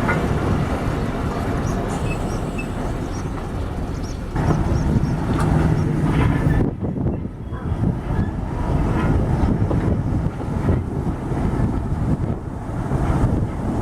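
Train running along the track: a steady rumble of wheels and carriages, with a change in the sound about four seconds in and again near the middle.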